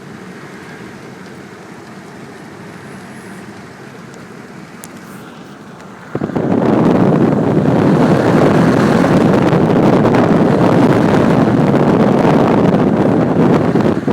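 Car driving on an icy road, heard from inside: a steady low rumble of road and engine noise, then about six seconds in a much louder, rough rushing noise cuts in suddenly and keeps on.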